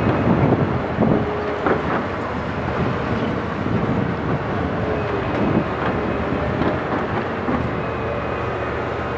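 Liebherr R974C high-reach demolition excavator running under load: a steady diesel engine and hydraulic drone with a whine that wavers up and down in pitch, and irregular crunching and clattering as its demolition tool breaks concrete from the upper floors.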